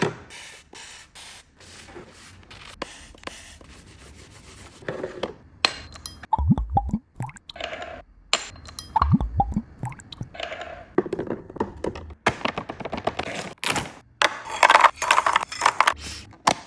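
Snack packets and drink containers being handled and set into a fridge: plastic packaging crinkling and rustling, items knocking and scraping onto the shelves, with a few deep thuds about six and nine seconds in.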